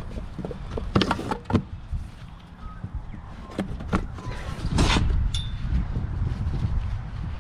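Scattered knocks and clunks, then a loud thud about five seconds in, followed by a steady low rumble.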